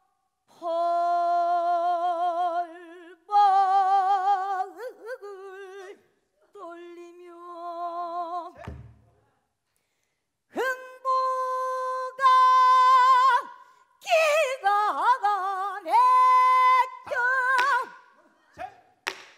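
Female pansori singer singing long held notes with a wide, shaking vibrato in the mournful gyemyeonjo mode, in several phrases with a short pause in the middle. A single low stroke of the buk barrel drum sounds just before the pause.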